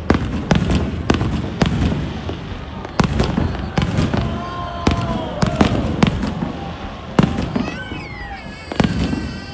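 Aerial fireworks display: a rapid, irregular series of sharp bangs from shells bursting, over a continuous low rumble.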